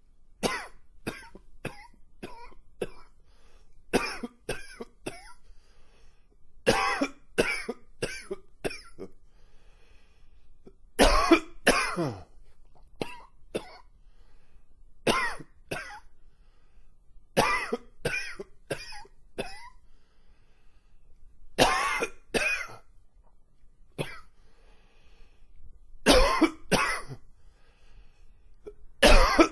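A man's long, wheezy coughing fit: clusters of two to five hacking coughs come every couple of seconds, with short pauses between them to catch his breath.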